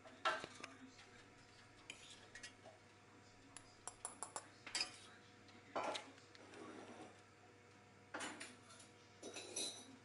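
Metal fork clinking and scraping against a stainless steel saucepan and a ceramic bowl as food is scooped across, in a string of separate short clinks and scrapes.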